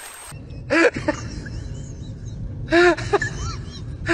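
A puppy barking in short yaps, three barks about two seconds apart, each followed by smaller yips.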